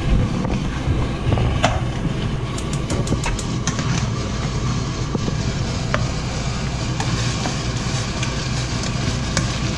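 A pork intestine stir-fry sizzling in a frying pan on a gas burner, with a spatula scraping and clicking against the pan as the food is turned over; a steady low hum runs underneath.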